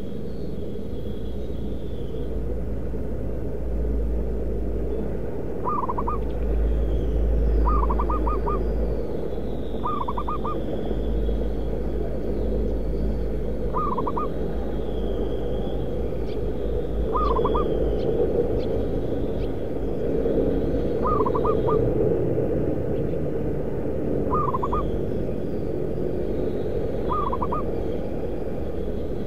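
Zebra dove (perkutut) cooing: eight short phrases of a few quick rolling notes, repeated every few seconds, over a steady low rumble.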